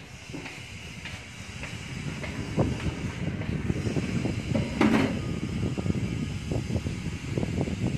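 Hands scrubbing a shampoo-lathered small dog's wet fur: irregular rubbing and squishing over a low rumbling noise. It grows louder about two seconds in, with one stronger stroke near the middle.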